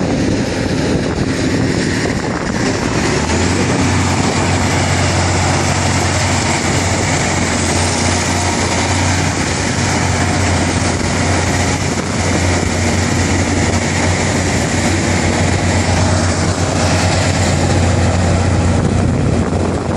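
Heavy diesel engines of a crawler dozer and an excavator running steadily, with a strong low drone joining about three seconds in and holding.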